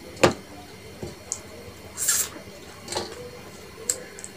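Close-miked eating sounds from eating with the fingers: a few sharp clicks and mouth smacks, the loudest just after the start, and a short hissy slurp about two seconds in.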